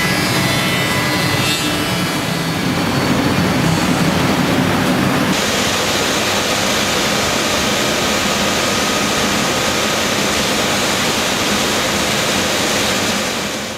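Biesse Rover C6.5 five-axis CNC machining centre running as it machines wooden door-frame parts: a steady, loud spindle and dust-extraction noise that changes tone about five seconds in.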